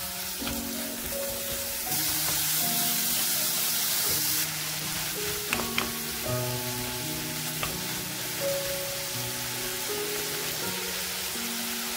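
Cubed pork sizzling as it stir-fries in a hot wok, the sizzle louder for a couple of seconds about two seconds in. A wooden spatula turns the meat, with a few sharp clicks against the pan about halfway through.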